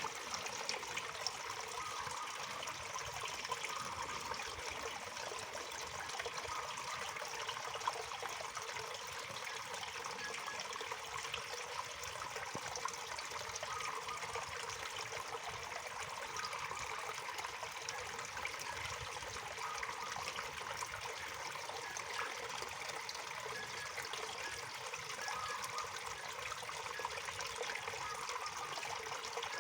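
Waterfall: falling water splashing and trickling in a steady, unbroken wash.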